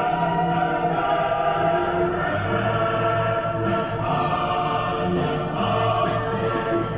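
Background music: a choir sings long sustained chords with slowly shifting notes.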